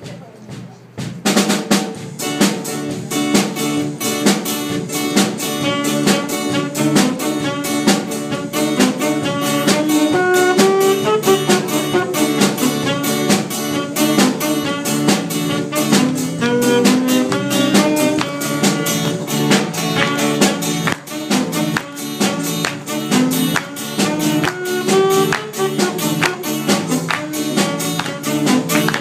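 Klezmer band playing a freilichs, a lively traditional dance tune, starting about a second in: saxophone carrying the melody over a quick steady drum-kit beat, with guitar and keyboard.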